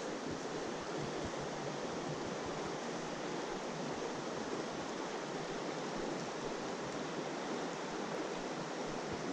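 Creek water rushing, a steady even wash of noise with no breaks.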